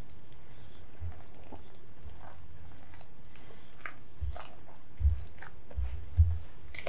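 Wire balloon whisk mixing flour into a wet, sticky bread dough in a glass bowl: soft squelching and scraping, with a few dull knocks, the loudest about five and six seconds in.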